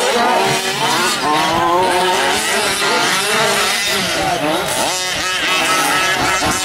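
Several 1/5-scale RC trucks' small two-stroke petrol engines revving up and down, overlapping, as the trucks race around the track.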